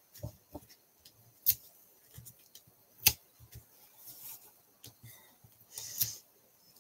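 Light clicks and taps of foam adhesive dimensionals being peeled from their backing sheet and pressed onto a cardstock panel, with one sharper click about three seconds in and a short paper rustle near the end.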